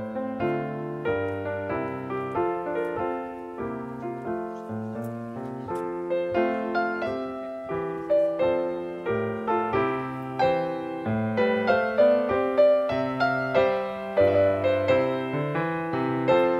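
Background piano music: a steady flow of notes over a lower bass line, getting somewhat louder about six seconds in.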